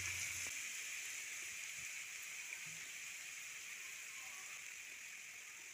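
Shredded boiled chicken frying in oil with vinegar and soy sauce in a non-stick pan: a steady hiss of sizzling that slowly dies down.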